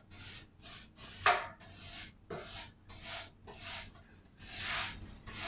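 Paint being spread in swishing, scraping strokes over a wooden nightstand, about two strokes a second.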